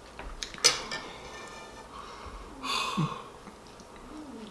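Knife and fork clicking once against a china dinner plate, then a sharp breath through the nose from someone chewing food he finds disgusting.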